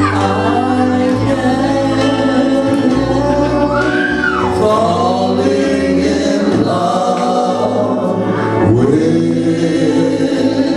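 Karaoke singing: two men singing a slow love song into handheld microphones over a recorded backing track, amplified through a PA.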